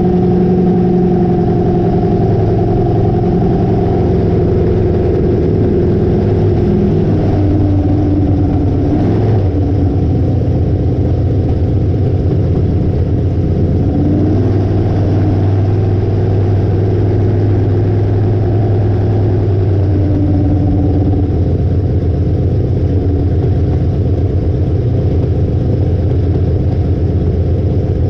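Hallett long-deck flatbottom boat's engine running loud and steady under way, its pitch dropping and rising a few times as the throttle changes.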